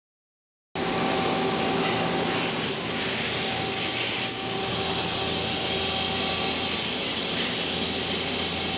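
Mazak CNC turning-center lathe running under power: a steady machine hum with a few steady tones over a hiss, cutting in abruptly less than a second in.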